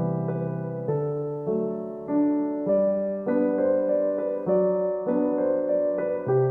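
Background music: a solo piano piece playing chords that change about every half second to second.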